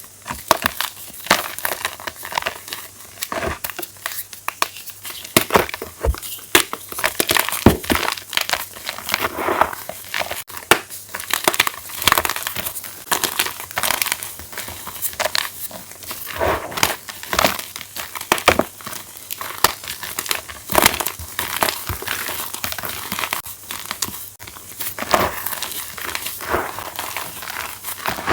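Fresh chalk blocks being crushed, a dense run of crisp crunches and crumbling.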